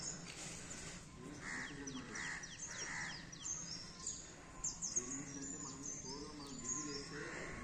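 Small birds chirping and twittering in quick falling notes, mixed with a few harsh caws typical of crows, several in the first half and one near the end.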